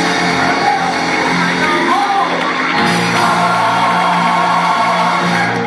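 Gospel choir singing with instrumental accompaniment, over steady held low notes that grow stronger about halfway through.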